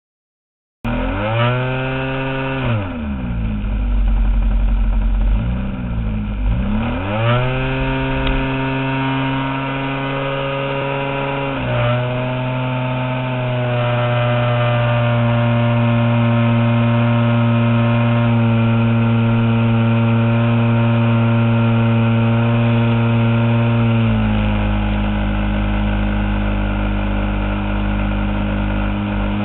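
Engine of a giant-scale RC model airplane running, starting about a second in. Its pitch drops and climbs back twice in the first seven seconds as the throttle is worked, then holds steady, rising a step around twelve seconds in and dropping a step near the end.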